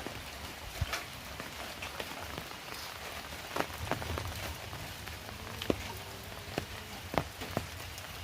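Heavy rain falling: a steady hiss with scattered sharp taps of single large drops.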